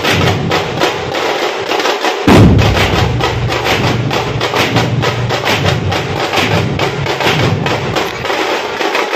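Dhol pathak: a group of large Maharashtrian dhol barrel drums beaten with wooden sticks in a fast, steady rhythm, sharp stick strokes over deep booms. The deep booms drop away briefly, then come back loudly a little after two seconds in.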